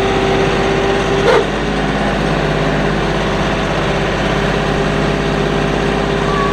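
Kioti NS6010 compact tractor's diesel engine running steadily while the front-loader grapple's hydraulics clamp and lift a large rock. A steady whine over the engine eases after a short surge about a second in.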